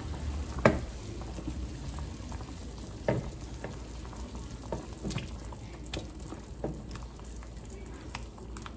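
Chunks of potato dropped one after another into a pot of simmering chicken broth, each landing with a short splash, several times at uneven intervals over the steady bubbling of the broth.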